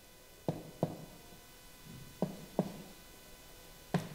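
Finger-on-finger percussion of the right chest wall of a training manikin: short taps struck in pairs, a pair every second and a half or so, the last tap loudest. It is the percussion step for finding the upper border of liver dullness, the hand moving down the intercostal spaces.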